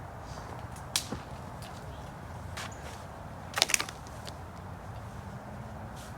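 A few sharp snaps and clicks from setting up a tarp shelter, one about a second in and the loudest a quick cluster a bit past the middle, over a steady low rush.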